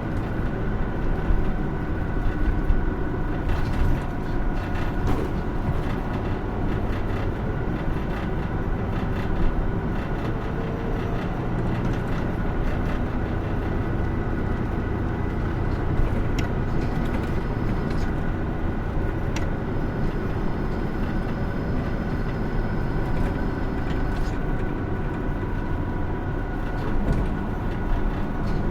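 Interior running sound of a 2016 Hino Rainbow II medium-size route bus under way: steady diesel engine drone and road rumble, with occasional clicks and rattles from the cabin.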